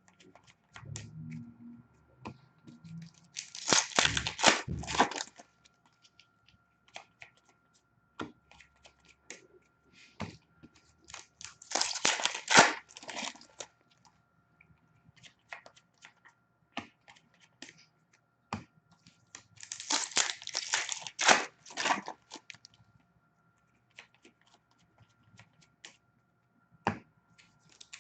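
Hockey card packs being torn open: the wrappers are ripped and crinkled in bursts about every eight seconds, with light clicks and rustles of cards being handled in between.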